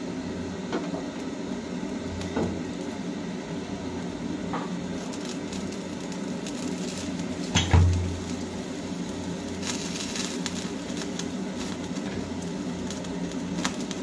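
Small oiled eggplants being set one by one on a wire mesh over a lit gas burner: light knocks and clicks against the metal, the loudest a knock with a low thump about eight seconds in, over a steady low hum.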